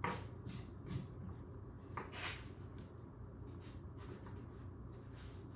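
Faint rubbing and a few light taps from pieces of plywood being handled and slid against each other; the saw is not running.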